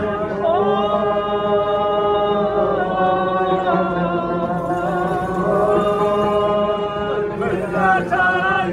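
A group of men singing together in a chant, holding long notes that bend slowly in pitch, with no drumming; near the end the melody turns into quicker ornamented runs.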